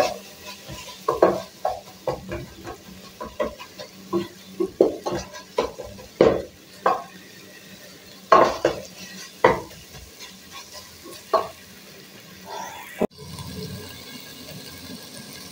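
Wooden spoon stirring and scraping shredded cabbage frying in a metal pot, in irregular strokes, with the cabbage sizzling underneath. The strokes stop about three-quarters of the way through, leaving a steady sizzle.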